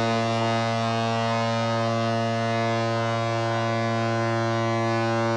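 Ship's horn sounding one long, steady, deep blast across the harbour.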